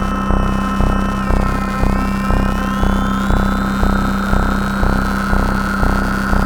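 Dark Energy analogue synthesizer: a low pulse repeats about twice a second under a steady drone, while high pure tones dip about a second in and then glide slowly upward.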